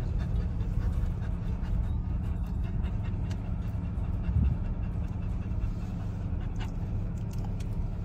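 Golden retriever puppy panting inside a car, over the cabin's steady low rumble.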